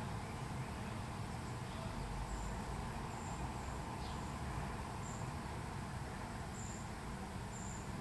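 Outdoor ambience: a steady low rumble, with scattered faint, very high short chirps several times.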